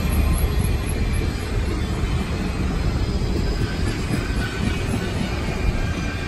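Union Pacific passenger cars rolling past at close range: a steady rumble of steel wheels on the rails with rapid clicking, and a faint high wheel squeal in the second half.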